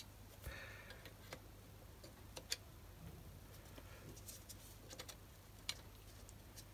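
Faint, scattered metal clicks and ticks of a wrench being fitted to and worked on the worm-shaft adjuster of a BS-0 dividing head; the sharpest tick comes about two and a half seconds in.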